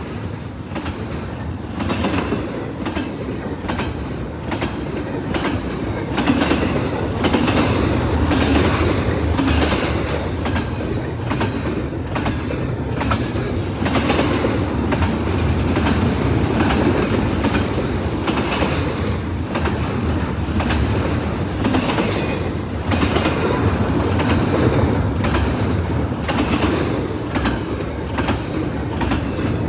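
Freight train cars rolling past, their wheels clacking over the rail joints in a steady run of clicks over a continuous rumble.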